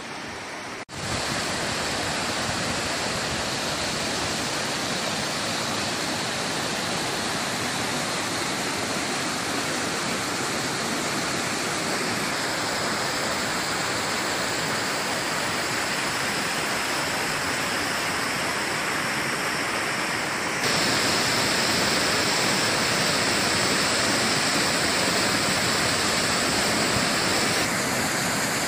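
Shallow mountain stream rushing over boulders and rocks, a steady noise of running water. It gets louder about two-thirds through and changes again near the end, where a waterfall pours down a steep rock face.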